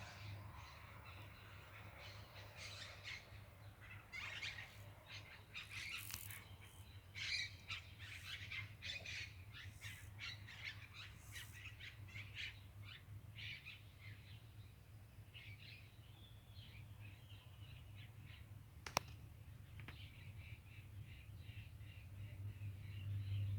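Small birds chirping and calling in quick, overlapping bursts, busiest through the first half and thinning out later. A single sharp click about nineteen seconds in, over a faint low steady hum.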